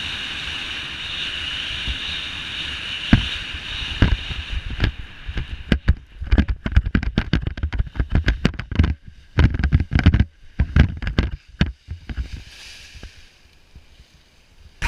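Steady rush of air over the camera microphone in fast, low flight under a speedwing. After about four seconds it breaks into irregular thumps and wind buffeting as the pilot touches down and runs out the landing on grass, then goes quieter near the end.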